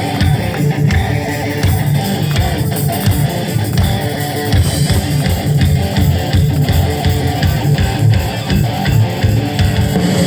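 Rock band playing live: distorted electric guitars, bass and drums in an instrumental passage with a steady driving beat.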